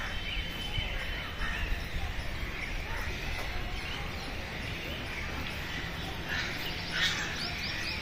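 Birds chirping and calling in trees over a steady low rumble, with a quicker run of sharp chirps near the end.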